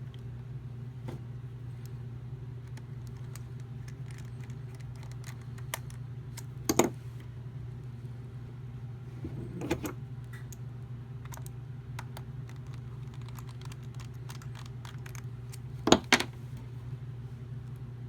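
Small scattered clicks and taps of hand-fitting a PS4 controller's plastic shell and its small screws, with a few louder clattering knocks about 7, 10 and 16 seconds in, over a steady low hum.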